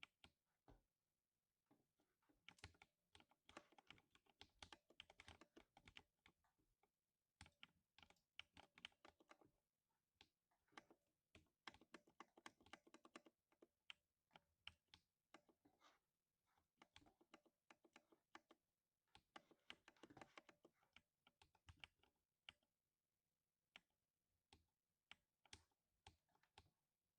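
Quiet typing on a 60% mechanical keyboard with lubed silver linear switches: fast runs of keystrokes broken by short pauses.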